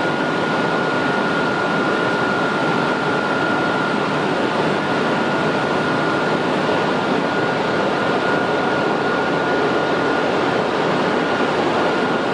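Standing locomotive's cooling blowers running steadily, a loud even rush of air with a steady high whine over it.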